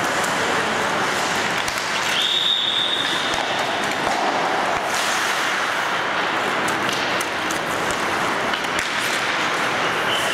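Ice hockey practice on the rink: a steady hiss of skates on ice, scattered sharp clacks of sticks and pucks, and a brief high steady tone about two seconds in.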